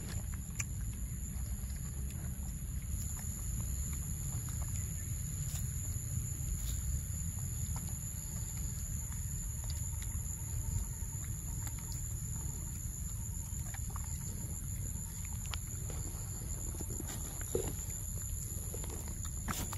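A macaque biting and chewing a ripe green mango, small wet clicks and crunches scattered through. Under it is a steady low rumble and a constant high-pitched whine.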